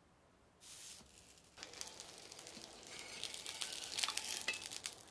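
Hot oil sizzling on an iron griddle: a short hiss as oil is brushed on, then a steady sizzle full of crackles as a panko-breaded bread cutlet (pankatsu) fries, growing louder to a peak about four seconds in.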